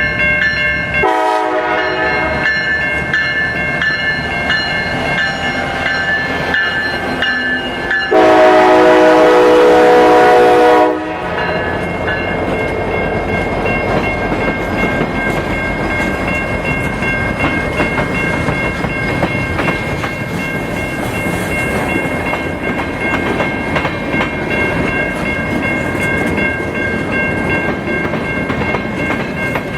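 Norfolk Southern freight train of empty cars rolling past, wheels clacking over the rail with a steady high squeal. The locomotive horn sounds from about a second in, then gives one loud blast of about three seconds roughly a third of the way through.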